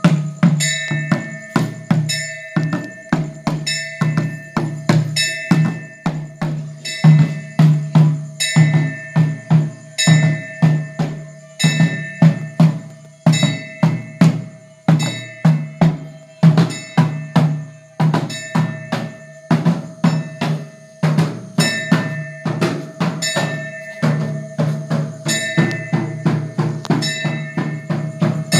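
Temple percussion ensemble: drums beaten in a fast, steady run of strokes, with metal percussion ringing throughout.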